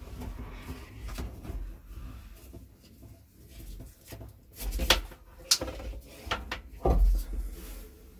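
Handling noise with a few sharp plastic clicks and knocks, clustered in the second half, as a clip-on piece is fitted onto a pull-down kitchen faucet's hose.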